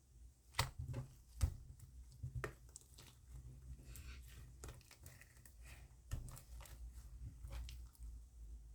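Slime being handled with the hands, giving faint, irregular sticky clicks and pops, the loudest about a second and a half in.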